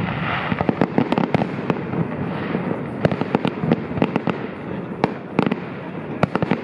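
Fireworks going off: a continuous rushing hiss with many irregular sharp cracks and pops, bunching into a quick run of cracks near the end.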